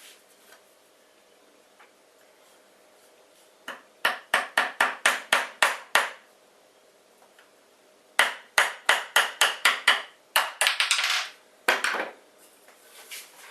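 Two quick runs of metallic hammer taps, about four a second, driving a bearing onto a shaft. A short scraping rasp and one last knock follow near the end.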